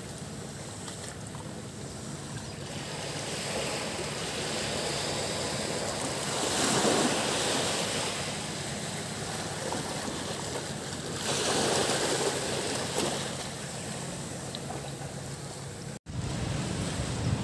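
Sea waves washing onto a beach, with two bigger swells about seven and twelve seconds in. The sound cuts out for an instant near the end.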